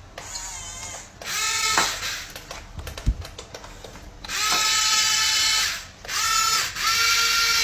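Small electric motor of a toy excavator whining in bursts, each rising quickly in pitch and then holding steady. A short burst comes about a second in; longer runs start about four seconds in, with two brief stops. Light clicks fall between the first and second bursts.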